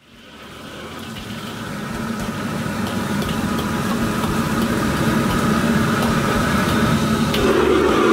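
Restaurant wok station at full fire: the gas wok burner runs with noodles sizzling in the wok, and a ladle scrapes and knocks against the pan now and then. The sound fades in over the first couple of seconds and grows fuller near the end as the flame flares up under the wok.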